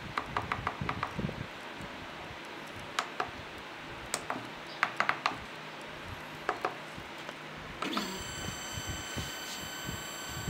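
Plastic clicks of a CNC controller's membrane keypad buttons being pressed, singly and in quick runs. About eight seconds in, a steady high whine made of several tones starts and holds, as a stepper motor driven by the controller runs.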